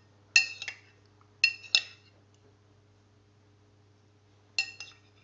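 A utensil clinking against a dish in three quick pairs of short ringing clinks: near the start, about a second and a half in, and near the end.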